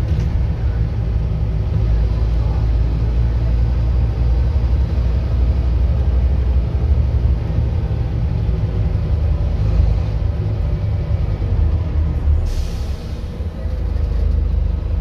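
Scania N230UD double-decker bus under way, heard from inside the upper deck: its five-cylinder diesel engine and drivetrain give a steady low rumble. Near the end there is a short hiss of air from the bus's air system.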